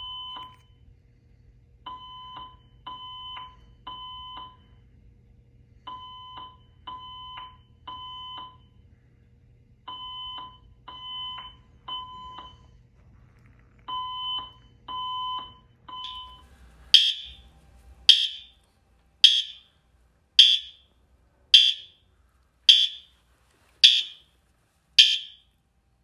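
Fire alarm evacuation tone from ceiling speakers, sounding in groups of three steady beeps. After about 16 seconds it gives way to a System Sensor HRL horn chirping briefly about once a second. The horns chirp because they were wired onto the voice-evacuation speaker circuits instead of regular notification circuits, which also caused short-circuit troubles.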